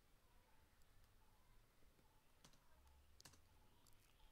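Near silence with a few faint clicks from a computer mouse and keyboard, two of them a little clearer a little past halfway.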